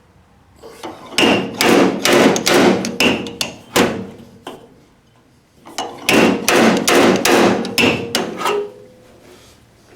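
Hammer blows on the sheet-metal body of an MGA during dent repair, in two quick runs of roughly three or four sharp strikes a second with a short pause between.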